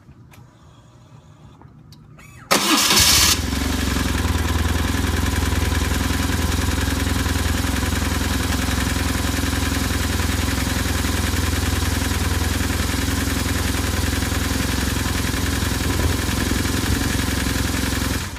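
A 2004 BMW R1150RT's boxer-twin engine is cranked and catches about two and a half seconds in, with a short loud burst at the start. It then idles steadily until it is shut off near the end.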